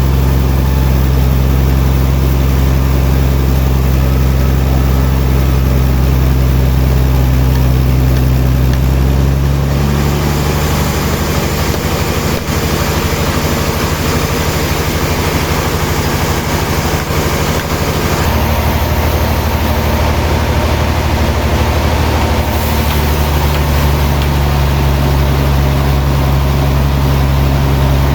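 Heavy sawmill machinery running with a loud, steady low hum and a mechanical din over it. The pitch and mix change abruptly three times.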